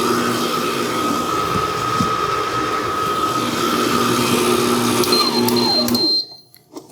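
Vevor 600-watt stand mixer's motor running steadily with a whine as the scraper beater creams butter, sugar and eggs. About five seconds in it is switched off, and the whine falls in pitch as the motor winds down and stops.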